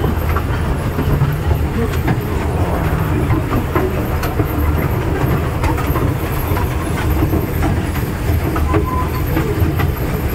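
Amusement-park toy train running on its track: a steady low rumble with irregular clicks of the wheels over the rail joints.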